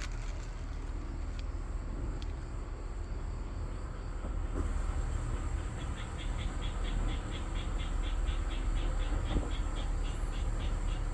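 Native honeybees flying around the hive entrance over a steady low rumble. About halfway in, an insect begins a high, rapid chirping at about four or five pulses a second, which lasts some four seconds.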